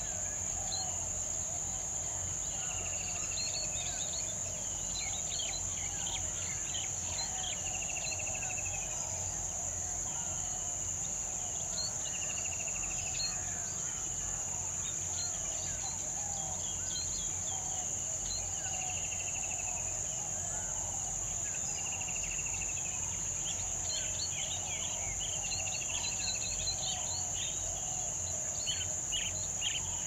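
Steady high-pitched drone of insects, with wild birds chirping throughout and one bird repeating a short falling trill about every four seconds. The chirping grows busier near the end.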